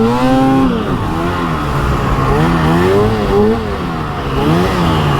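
Arctic Cat 858 two-stroke snowmobile engine revved up and down over and over, its pitch rising and falling without holding high RPM. The sled is bogging and won't pull RPM even with fresh spark plugs.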